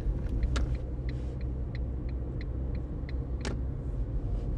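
Steady low rumble of a car on the move, with a run of short, evenly spaced ticks, about three a second, for a couple of seconds in the middle, and two sharper clicks.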